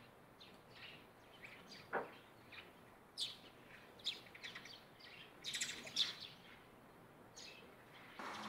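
Eurasian tree sparrows chirping: short, high chirps in irregular bursts, with a busy flurry of them a little past the middle.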